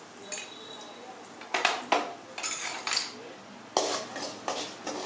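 Metal spoon clinking and scraping against an aluminium kadai as a spice tempering is stirred: a run of sharp clanks and scrapes starting about a second and a half in.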